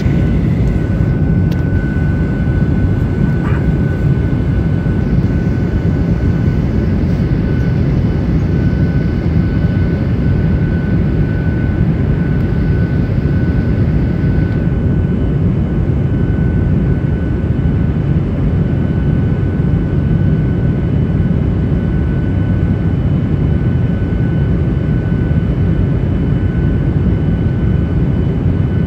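Inside the cabin of a Boeing 737-800 on approach: a steady deep rumble of airflow and its CFM56-7B turbofan engines, with a faint high whine. A higher hiss fades out about halfway through.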